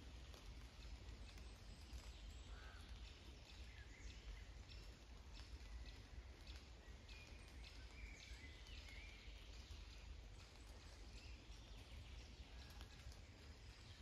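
Faint wet-forest ambience: scattered raindrops ticking and distant birds calling briefly now and then, mostly in the middle, over a steady low rumble.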